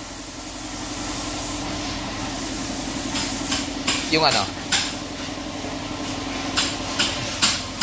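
A car engine idling with a steady low hum. From about three seconds in there is a series of irregular sharp knocks.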